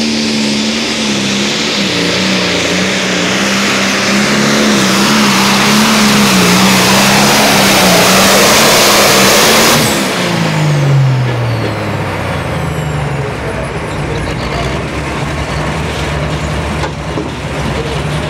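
Turbocharged diesel pulling tractor at full throttle under load during a hook, its engine note steady with a bright hiss over it. About ten seconds in the throttle comes off: the hiss stops and the engine and turbo wind down to a lower, quieter running.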